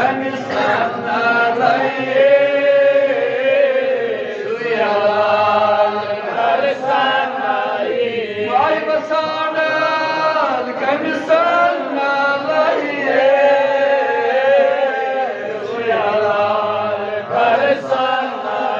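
A man chanting a devotional recitation in a melodic voice, with long held notes that waver and glide, broken by short pauses for breath.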